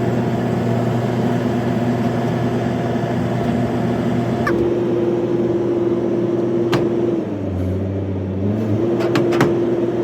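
Heavy machinery running steadily, a droning hum that shifts in pitch a few times, with a few sharp clicks near the end.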